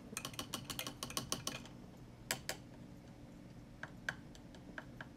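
Faint, quick run of light clicks, about ten a second for the first second and a half, then a few scattered single clicks.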